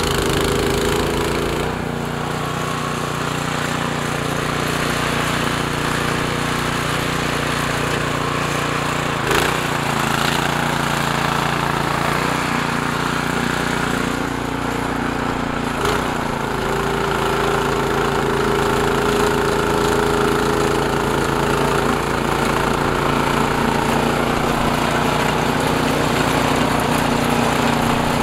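Cub Cadet 2X two-stage snowblower's engine running steadily while the machine clears snow, its pitch shifting slightly a couple of times. Two brief knocks stand out, about a third of the way in and just past halfway.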